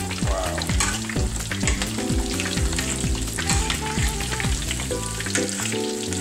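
Crusted tilapia fillets frying in hot oil in a stainless skillet: a steady, dense crackling sizzle with many small pops. Background music with a deep bass beat runs underneath.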